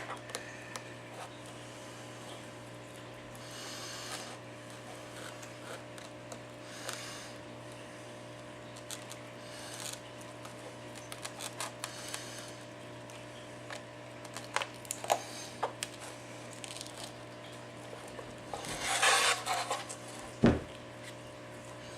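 A flat pry tool scraping and clicking under the edge of an iPad 4's glass digitizer, breaking the adhesive loose in short, scattered strokes, with the loudest scrape near the end and a sharp click just after. A steady low hum runs underneath.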